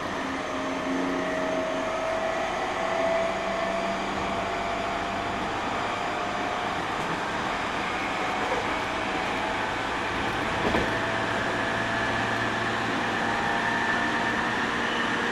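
Inside a JR 209-500 series electric train running along the line: a steady rumble of wheels and car running noise with a faint high whine held throughout.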